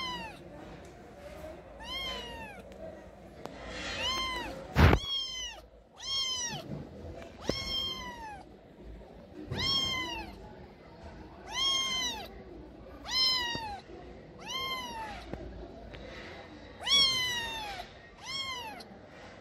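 A stray cat meowing over and over: about a dozen meows, each rising and then falling in pitch, a second or two apart. A single sharp knock comes about five seconds in.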